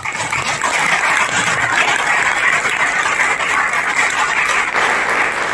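Audience applauding: loud, dense clapping that starts all at once.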